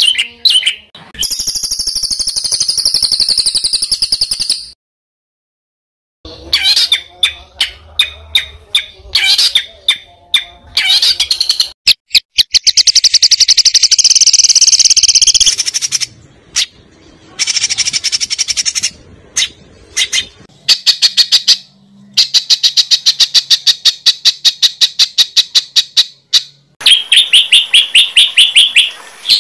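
Songbird song recordings joined one after another: fast trills, harsh chattering runs and rapid strings of repeated high notes. There is a sudden break of silence about five seconds in.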